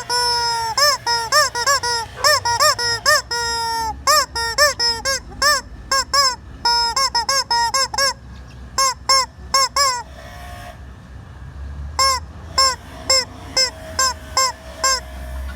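Squeaky rubber chicken toy squeezed again and again, giving rapid short squawks that rise and fall in pitch, with a few longer drawn-out squeals mixed in. It pauses for about two seconds near the end, then the quick squawks resume.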